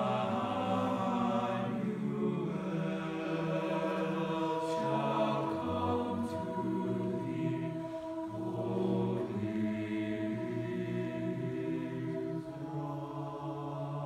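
Mixed chamber choir of men's and women's voices singing slow, sustained chords, each held for a second or two before moving to the next.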